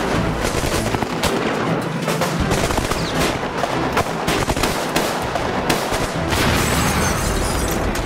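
Dense, continuous gunfire: bursts from a drum-fed submachine gun mixed with pistol shots, fired in quick succession with no break.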